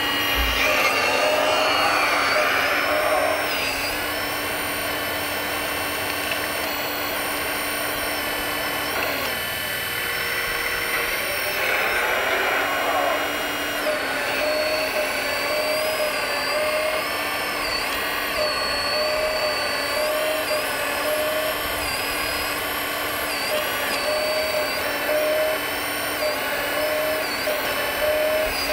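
Electric hydraulic pump of an RC hydraulic excavator (Kabolite K350) whining steadily as it digs and loads, its pitch dipping briefly now and then as the arm and bucket take load.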